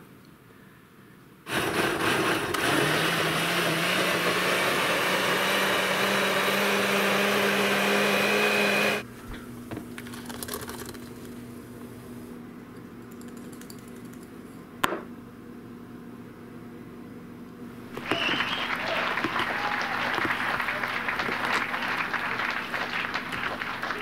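Countertop blender running for about seven seconds, puréeing chopped sweet peppers, tomatoes, hot pepper and basil into soup; its motor tone steps up slightly soon after it starts, and it stops abruptly. Quieter handling noises follow, with a louder stretch of noise near the end.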